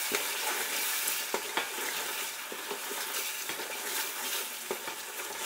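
Ground masala and ginger-garlic-chilli paste frying in hot groundnut oil and ghee, with a steady sizzle. A wooden spatula stirs it around a metal pot, giving a few scattered scrapes and taps. The masala is being sautéed so that it cooks through and loses its raw bitterness.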